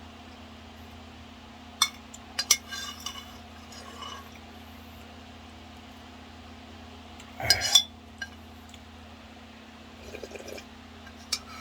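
Eating sounds from a bowl of ramen: a few sharp clinks of utensils against the bowl, and a short louder slurp of broth about seven and a half seconds in, over a steady low hum.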